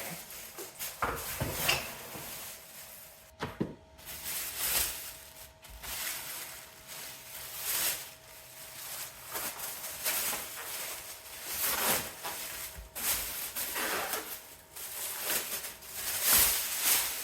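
Chair parts and their packaging being handled: repeated rustling and scraping of cardboard and wrapping, with a few light knocks.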